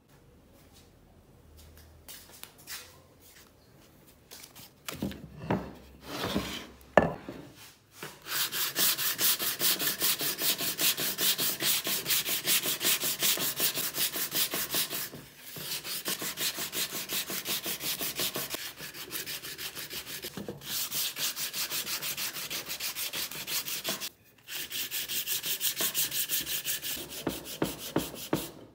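Hand sanding of a wooden strip with a folded sheet of sandpaper: quick back-and-forth strokes, about four a second, in several runs with short pauses. The sanding starts about eight seconds in, after a few knocks of the wood being handled.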